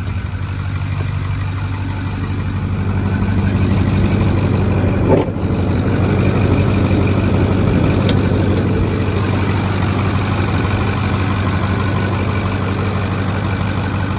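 Ford 6.4 L Power Stroke twin-turbo V8 diesel idling steadily, getting louder as the open engine bay is approached. A single knock about five seconds in.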